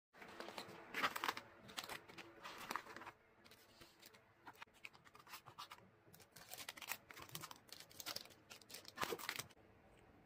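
Plastic packaging bags and shredded paper filler rustling and crinkling in irregular bursts as they are handled and set into a cardboard mailer box. The handling stops near the end, leaving only faint hiss.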